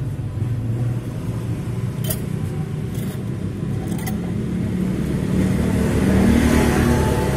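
Motorbike engines running in street traffic, one motorbike passing close with its engine rising and loudest about six seconds in. A few sharp clicks about two, three and four seconds in.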